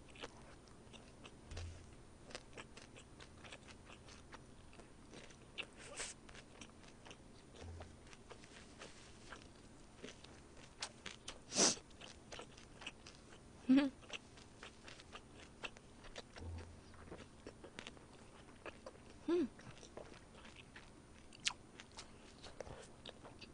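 A person chewing a mouthful of food close to the microphone, with many small wet mouth clicks and smacks. There is one sharper click about twelve seconds in, and a couple of brief murmurs later on.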